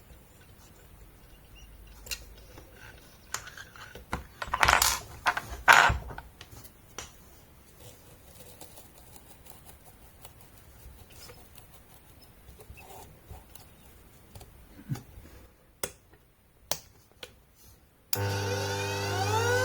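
Scattered clicks and a few knocks of handling, then near the end an electric bench grinder's motor switches on suddenly with a steady hum and a whine that rises in pitch as it speeds up.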